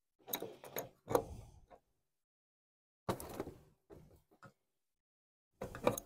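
Short scrapes and clunks of parts being handled, in several separate bursts with small ticks between.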